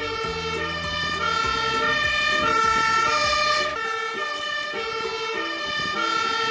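Two-tone siren on a Magirus aerial ladder fire engine, switching between a high note and a low note about every half second. A low engine rumble runs under it for the first half.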